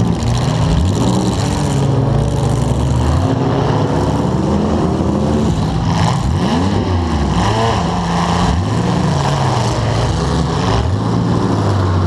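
A demolition derby car's engine, heard from on board, revving up and down again and again as the car drives and manoeuvres, its pitch rising and falling every second or two.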